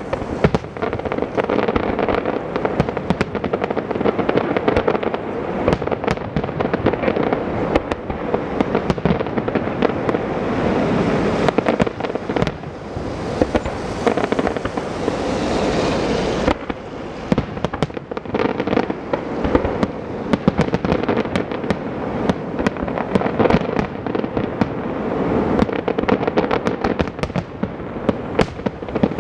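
Aerial fireworks display: a dense, continuous barrage of shell bursts with many sharp bangs and crackling. A hissing stretch near the middle cuts off suddenly.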